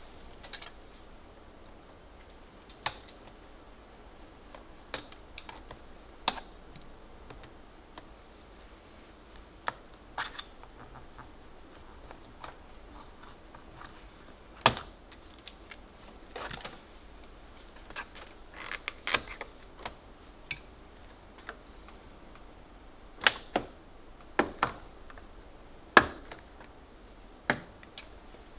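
Irregular sharp clicks and snaps of a 2010 Toyota Camry's plastic front door trim panel being pried and worked free by hand, about twenty over the stretch, the loudest about halfway through and a little before the end.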